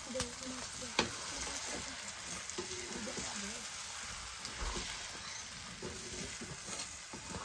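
Noodles sizzling as they are stir-fried in a two-handled metal pan over a wood fire, with short clicks and scrapes of a metal fork against the pan. The sharpest click comes about a second in.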